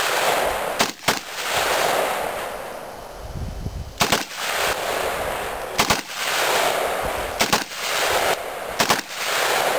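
Saiga 12-gauge shotgun with a 12-inch barrel, converted to full auto, firing about eight loud shots. The shots come singly and in quick pairs a second or more apart, and each one is followed by a long rolling echo.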